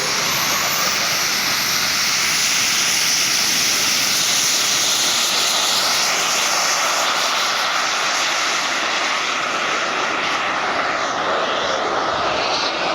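Model gas-turbine engine on a half-scale Fox jet glider, a high whine rising near the start, then running steadily at power with a loud rushing hiss. The highest part of the whine fades after about two-thirds of the way through.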